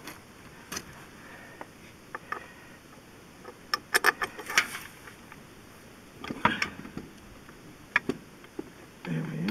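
Scattered sharp metallic clicks and clinks of steel bolts and a socket ratchet being handled at a tractor's brake housing, with a quick run of clicks about four seconds in.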